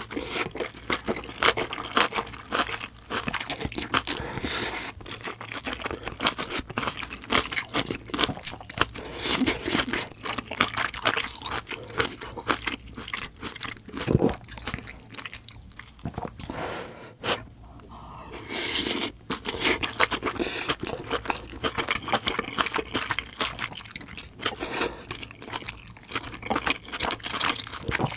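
Close-miked eating: chewing and crunching of kimchi stew with tofu, with wet mouth sounds and chopsticks and a spoon scraping and clicking on the dishes.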